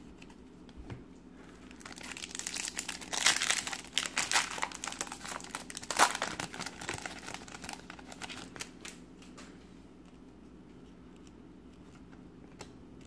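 Foil wrapper of a 1998-99 Topps Finest Series 1 card pack being torn open and crinkled by hand. The crinkling starts about two seconds in and dies away about nine seconds in, with its loudest crackle about six seconds in.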